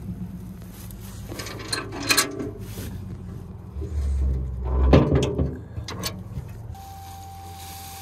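Metal clanks and rattles of a dump trailer's tailgate latch rod being pulled and the gate swinging open, with a loud knock about five seconds in. Near the end the low hum gives way to a steady whine as the bed tips up and the load of wood chips starts to slide out.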